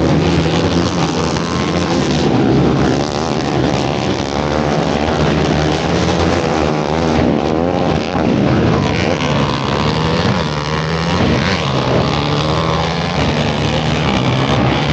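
Several racing quad (ATV) engines running at once on a dirt track, their pitch rising and falling as they rev.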